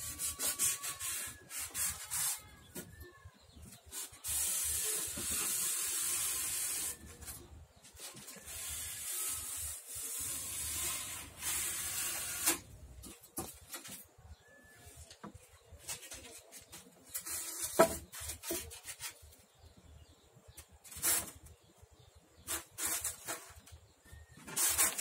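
Utility knife blade scoring a sheet of polystyrene foam along an aluminium straightedge, in long scratchy strokes of a couple of seconds each. Shorter scrapes and clicks come from the foam board and straightedge being handled.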